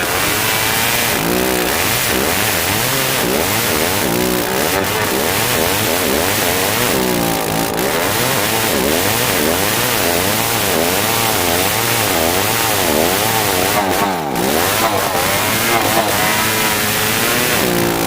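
Old two-stroke chainsaw running hard through dry merbau hardwood, its engine pitch repeatedly dropping and climbing back as the chain bogs and frees in the cut.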